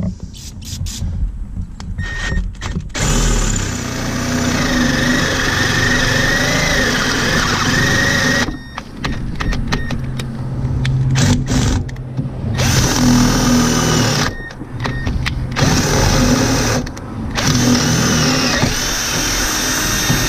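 Electric drill boring out a worn steel door hinge pin on a 1999 Jeep Cherokee, starting after a few short clicks and running in several stretches with brief stops, its pitch wavering under load.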